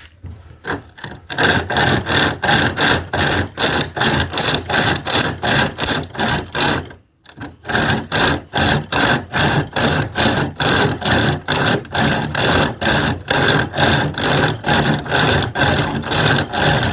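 SOG pocket chainsaw, a hand-pulled chain saw, being drawn back and forth through a cut in fast, even rasping strokes, about four or five a second. There is a short pause about seven seconds in before the sawing resumes.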